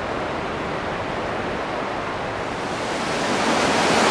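Steady rush of flowing stream water, growing louder about three seconds in.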